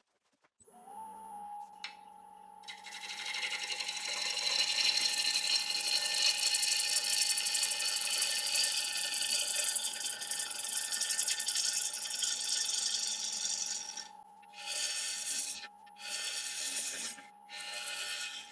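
Wood lathe motor starting with a steady whine, then a gouge cutting the spinning applewood blank with a loud hissing scrape for about ten seconds, followed by three short cuts near the end.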